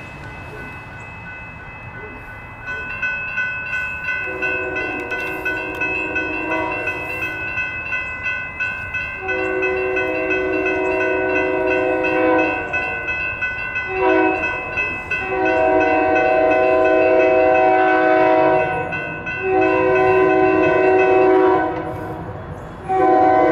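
Railroad crossing bells ringing rapidly, joined from about four seconds in by a train's Nathan K3LA five-chime horn sounding a chord in repeated blasts: two long, a short, then several more long ones, the grade-crossing warning as the train approaches.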